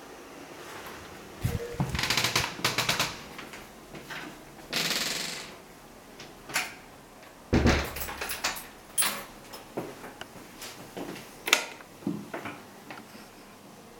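Doors being handled: a string of sharp clicks, knocks and rattles of a door lock and handle, a brief swish about five seconds in, and a heavier thump of a door a little past the middle, followed by lighter clicks.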